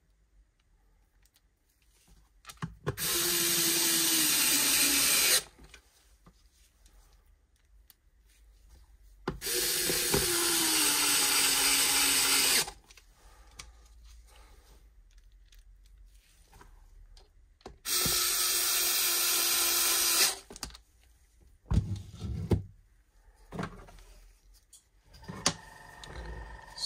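Pen-style electric precision screwdriver running three times for about three seconds each, driving screws into the plastic back panel of a Bluetooth speaker; its whine drops in pitch near the end of each run as the screw seats. Short handling knocks follow near the end as the speaker is picked up.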